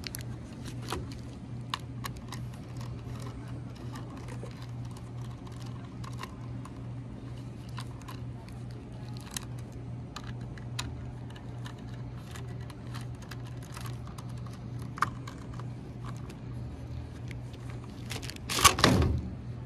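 Small, irregular metallic clicks and taps of a screwdriver and screws working on a steel card-reader mounting bracket, over a steady low hum. A brief louder noise comes near the end.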